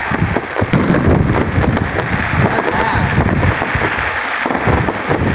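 Aerial fireworks going off: a quick run of bangs and crackling pops, one after another, over a continuous low rumble.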